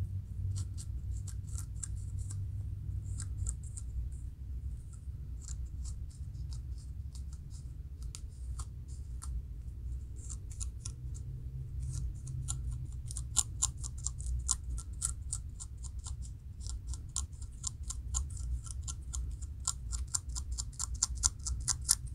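Fingernails scratching and picking at a dry, flaking scalp, lifting dandruff: short crisp scratches in quick irregular runs, coming thicker and louder from about halfway through.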